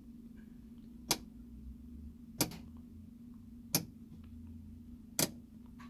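AEM 12-position rotary switch turned by hand one detent at a time: four sharp clicks, evenly spaced about a second and a quarter apart, over a faint steady hum. Each click steps the boost offset up one position, raising the target boost.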